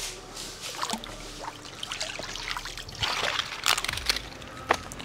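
Water trickling and sloshing as a tarpaulin-lined fish pond is drained over its loosened edge, with a louder stretch of splashing about three seconds in.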